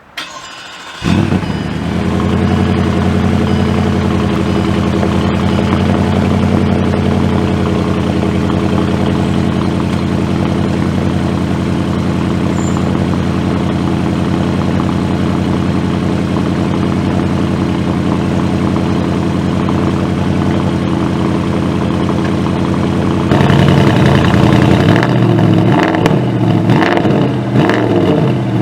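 Bentley Continental GT V8 S's twin-turbo 4.0-litre V8, fitted with the sports exhaust, starting up about a second in with a sharp flare and then idling steadily. Near the end it gets louder and is revved in several quick blips that rise and fall.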